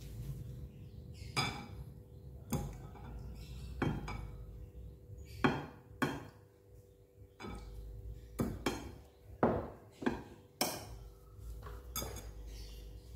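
A spoon clinking against a bowl and plate while someone eats: about a dozen sharp, irregular clinks.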